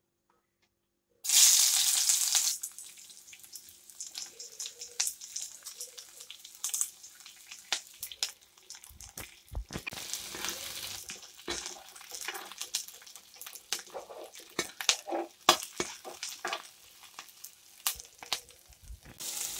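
Chopped onions dropped into hot mustard oil in a kadai, with a loud burst of sizzling about a second in. The burst settles into steady frying, dotted with the clicks and scrapes of a steel spoon stirring against the pan.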